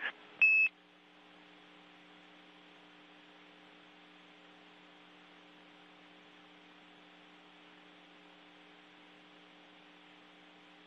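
A short, high electronic beep about half a second in, then a steady low hum with faint hiss on the audio channel.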